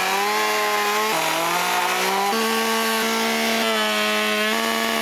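Two-stroke gas chainsaw with a 20-inch bar, clamped in a chainsaw mill, running at full throttle as it rips lengthwise through a log. The engine note drops under load about a second in, climbs back after two seconds, and drops again near the end.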